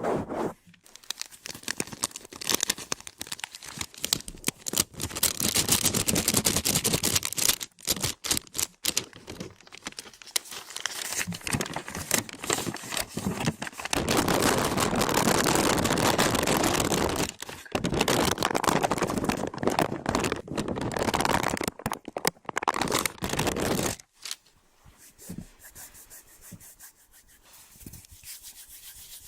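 Close-miked ASMR trigger sounds: irregular crinkling, scratching and rubbing mixed with sharp clicks. There is a long, loud, steady stretch in the middle, and it turns much quieter for the last few seconds.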